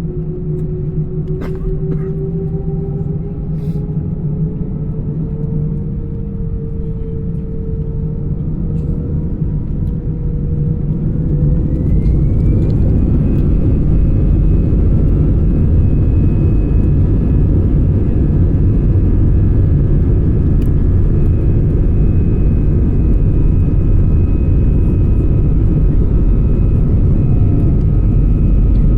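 Airbus A320's jet engines spooling up to takeoff thrust: a whine rises slowly in pitch, then climbs quickly about twelve seconds in as the sound grows louder, settling into a steady loud engine noise over a heavy low rumble of the takeoff roll.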